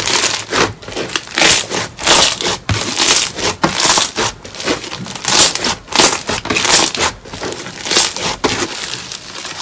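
Crunchy slime being squeezed and pressed by hand, crackling and crunching in repeated bursts a little under two a second.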